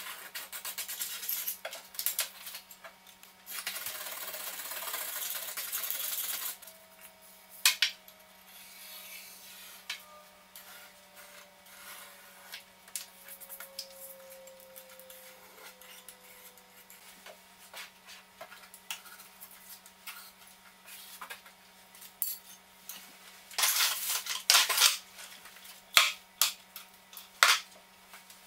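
Metal hand tools and wood knocking and clattering as they are picked up and put down on a wooden worktop, with scraping and rubbing against a fabric moving blanket; a stretch of loud scraping comes about four seconds in and a flurry of knocks near the end. A steady low hum sits underneath.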